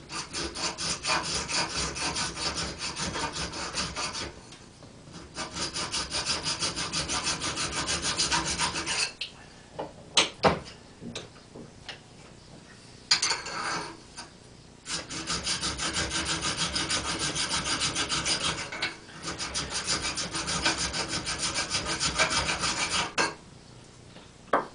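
Hand file rasping at the splines of an alloy steel hub, in runs of quick, even strokes about three or four a second with short pauses, filing down the high spots that stop the hub sliding onto the crankshaft. A few sharp knocks come near the middle and one near the end.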